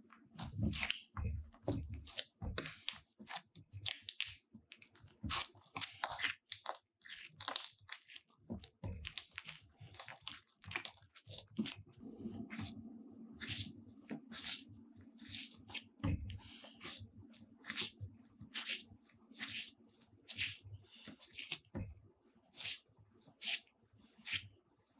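Bread dough kneaded by hand on a plastic mat: irregular wet squishing and sticky tearing as it is pressed, folded and squeezed, several times a second.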